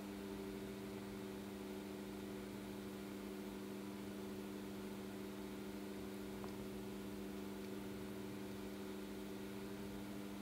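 A steady low hum of several fixed tones, unchanging throughout, with nothing else sounding.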